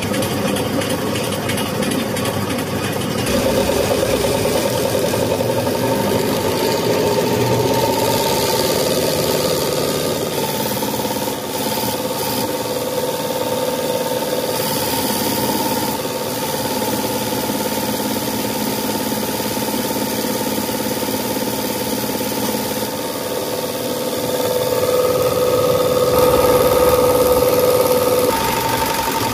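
Diesel injection pump test bench running with a rebuilt Mitsubishi 4D56 VE distributor pump on it, as fuel delivery is measured into graduated glasses. It makes a steady mechanical hum whose tone shifts several times and grows louder near the end.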